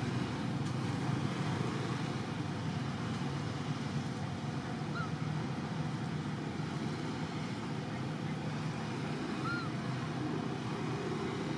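Steady low background rumble with two brief, faint chirps about four seconds apart.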